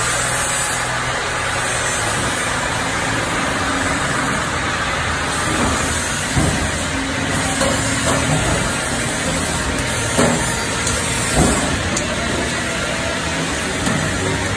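Engel Auto-Seamer 516 duct seaming line running with a steady mechanical drone. Several sharp metal knocks come in the second half as sheet-metal duct passes along the machine.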